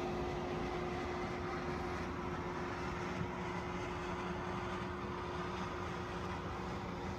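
Steady mechanical hum with one constant tone over an even noise.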